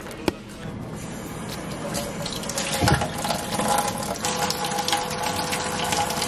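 Kitchen faucet running into a stainless steel sink while dishes are rinsed by hand, with a knock about three seconds in.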